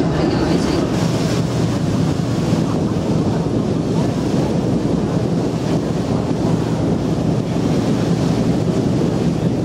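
Wind buffeting the microphone over water rushing past the hull of a moving Star Ferry: a loud, steady wash of noise with no distinct events.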